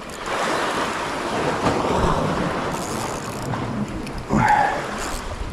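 Wind on the microphone over sea waves washing against the rocky shore, a steady rushing noise. A short pitched sound cuts in about four seconds in.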